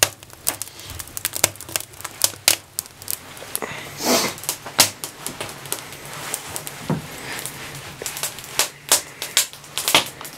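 Wood fire crackling and popping: sharp, irregular snaps, several a second, with a faint low hum underneath from about four seconds in.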